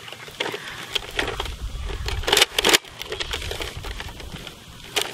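A toy rifle being handled, giving an irregular run of sharp mechanical clicks and knocks, two of them loudest and close together about two and a half seconds in.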